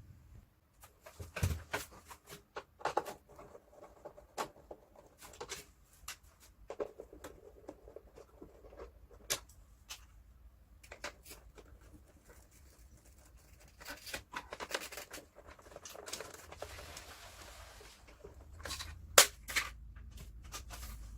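Scattered clicks, taps and brief scrapes of screws being undone and plastic panels of a split air conditioner's indoor unit being handled, with one sharp louder click near the end.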